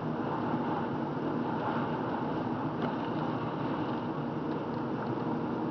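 Steady road noise of a car driving on wet pavement: tyre hiss with a low engine hum, heard from inside the cabin through a dash cam.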